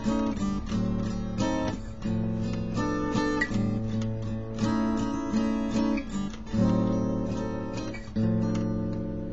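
Acoustic steel-string guitar played by hand, chords struck one after another and left to ring, changing every half second to a second.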